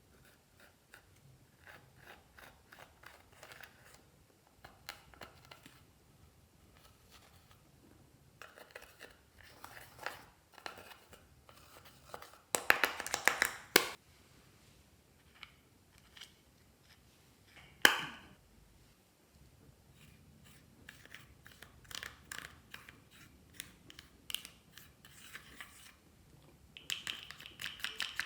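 Close-up crackling and clicking from slime being handled and mixed, coming in bursts of small crisp clicks. A louder, denser burst comes about halfway through, and a single sharp snap follows a few seconds later.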